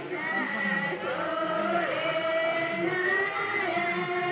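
Several voices singing together, holding long, wavering notes.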